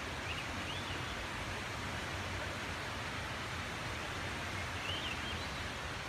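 Forest ambience: a steady rushing background noise, with a small bird chirping faintly twice, once near the start and again about five seconds in.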